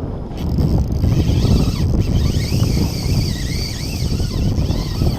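Wind buffeting the microphone on an open boat, a loud low rumble. From about half a second in, a fainter high-pitched whine wavers up and down above it.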